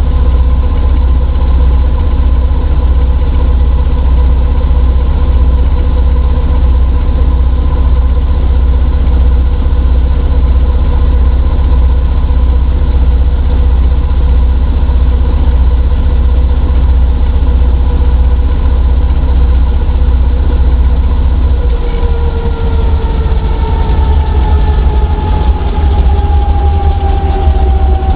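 Brantly helicopter's piston engine and rotor running steadily on the ground with a deep rumble; about 22 seconds in the pitch starts falling steadily as the engine and rotor slow down.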